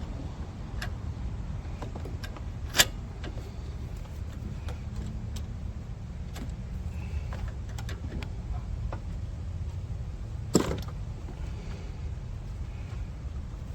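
Scattered clicks and light clinks from handling tools and parts on a car, with two sharp knocks about 3 seconds and 10 seconds in, over a steady low rumble.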